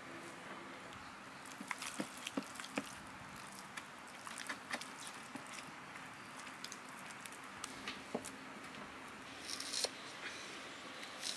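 Faint wet squelching and small clicks of hands rubbing thick masala paste into a scored whole fish on a metal plate. Near the end, a few sharper ticks of a knife slicing garlic cloves on a wooden chopping block.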